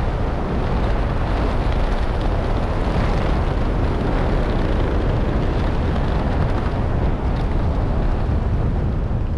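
Wind rushing steadily and loudly over a skydiver's camera microphone during the parachute descent, low over the field just before landing.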